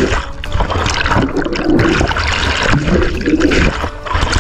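Rushing white water from a small weir cascade churning close around the microphone, swelling and dipping unevenly as foam washes over it.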